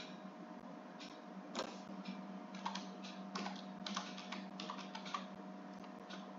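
Typing on a computer keyboard: a short run of keystrokes through the middle, over a steady low hum.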